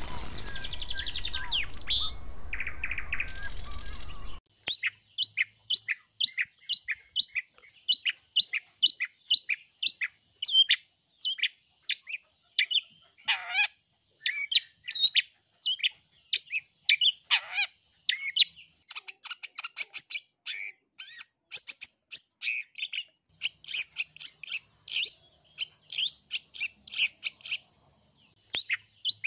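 Long-tailed shrike (cendet) singing a rapid string of short, sharp chattering notes, about three a second. Two longer downward-slurred notes come about halfway through, and the calling grows denser toward the end. It opens with a few seconds of hiss and sound effects from a logo intro.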